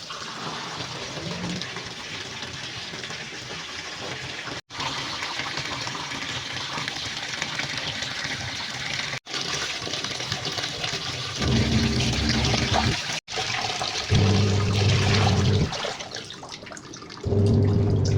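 Water running and splashing into a twin-tub washing machine. Three times in the second half, an electric motor hums steadily for about a second and a half and then stops.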